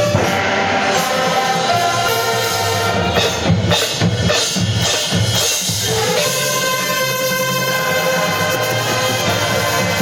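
High school marching band playing: held chords from the winds and brass over bass drums and percussion, with a run of drum strokes in the middle and a new chord coming in just after.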